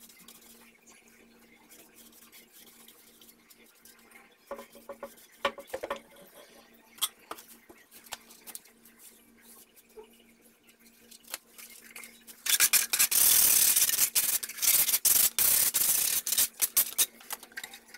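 Sandpaper on a wooden hand block rubbed briskly back and forth over a painted wooden board, a loud rough rasping in quick strokes that starts about two thirds of the way in. Before it, a few light knocks and scrapes as the board is handled.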